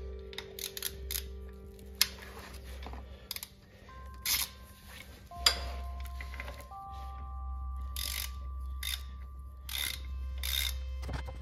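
Socket ratchet clicking in short, irregular strokes as the oil filter cover bolt is tightened on a Kawasaki KZ400 engine, with soft background music underneath.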